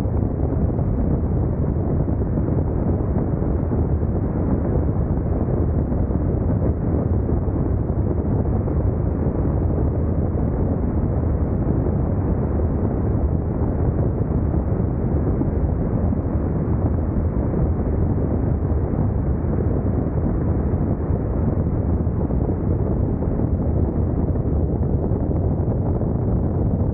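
Steady, loud wind rush on the microphone of an Insta360 X2 camera riding on a Honda NC750X DCT motorcycle at speed, with the bike's running and road noise blended into a low, even rumble.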